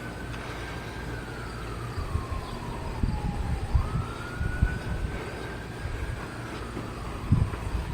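Federal Signal 2001 outdoor warning siren sounding a single tone that slides slowly down in pitch, jumps back up about halfway through, climbs again and begins to fall near the end. A few low thumps sit underneath.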